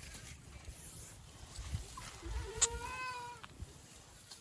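A goat kid bleats once, a single drawn-out call starting about two seconds in, with a short sharp click partway through.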